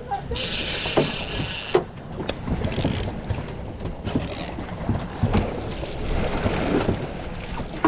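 Wind on the microphone and water moving around a small fishing skiff, with a few light knocks. About half a second in, a loud hiss sounds for just over a second.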